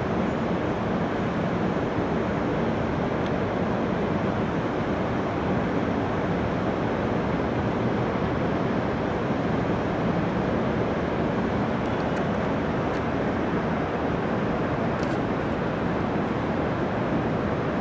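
Steady, even noise of distant city traffic rising from a busy street below, with no distinct events standing out.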